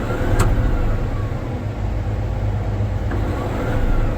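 Cat D8T dozer's diesel engine running steadily with the throttle set to the rabbit (fast) position, heard from inside the cab. A single sharp click about half a second in.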